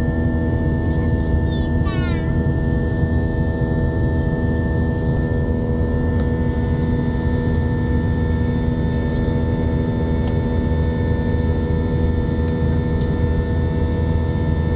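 Airbus A320 jet engines heard from inside the passenger cabin: a steady drone, a low rumble with several held whining tones over it.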